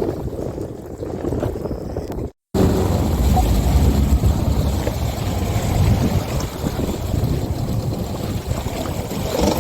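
Wind buffeting the microphone and water noise aboard a small fishing boat at sea. The sound cuts out for a moment about two and a half seconds in, then returns with a heavier low rumble.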